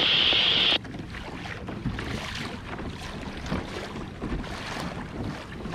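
Wind buffeting the microphone and water splashing and lapping along a kayak's hull as it moves across calm sea. It begins with a loud, high hiss that cuts off suddenly under a second in.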